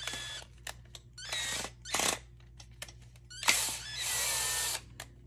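Cordless drill/driver running in short bursts, the longest about a second long near the end, with a squeaky whine.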